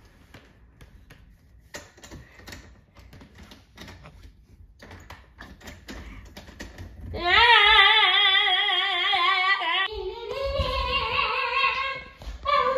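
A child's voice sings a long, loud, wavering note for about three seconds, then a second, higher and steadier note. Before the singing there are only faint clicks and taps, and at about six seconds a hand is on a doorknob.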